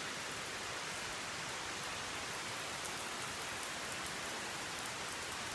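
Steady rain falling on a wet wooden deck.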